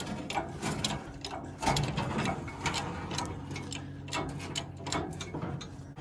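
Engine hoist and its lifting chain clicking and clanking with metal-on-metal ratcheting as the hydraulic cherry picker is jacked up to lift a 440 big-block short block, over a low steady hum.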